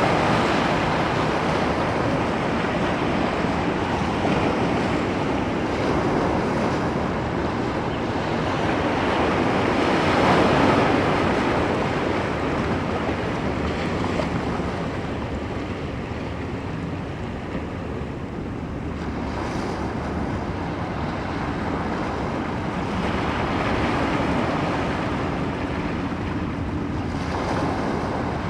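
Ocean waves breaking and washing on the shore, swelling and easing every several seconds, with wind rumbling on the phone's microphone.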